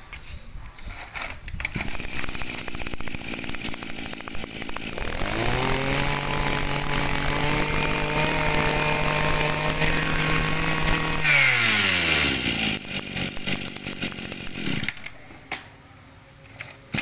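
Echo 26cc two-stroke brush cutter engine running rough at idle. About five seconds in it is revved up and held steady at high speed for about six seconds. It is then let back down, and it falls quiet near the end.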